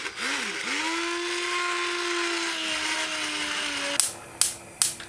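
Hand blender running in a saucepan of cooked strawberries, puréeing them into sauce. The motor whine rises as it spins up, runs steady and dips slightly near the end, then stops about four seconds in. Three sharp knocks follow.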